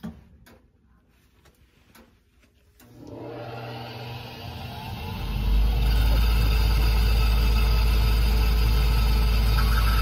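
Trane XR80 gas furnace switched on: a click, then about three seconds later its draft inducer motor starts up, rising in pitch, and settles into a steady loud run with a deep rumble.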